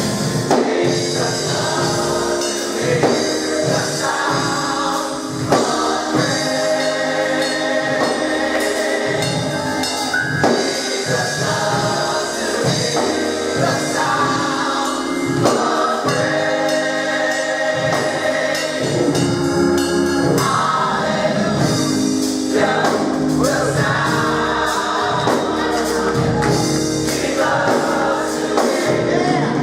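Mass gospel choir singing with instrumental accompaniment and a steady beat.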